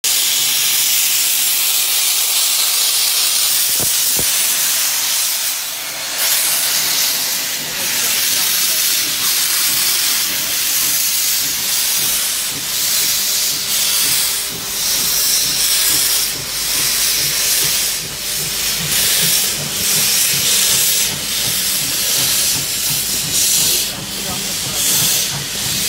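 GWR pannier tank locomotive No. 1369 pulling away, with a loud continuous hiss of steam venting at track level, typical of open cylinder drain cocks. From about six seconds in, exhaust beats pulse roughly once a second. Later a quicker low clicking comes about twice a second.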